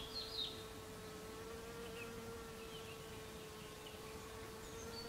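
Bee-fly hovering at lungwort flowers while it sips nectar, its wings giving a faint, steady buzzing hum. A few faint bird chirps come near the start.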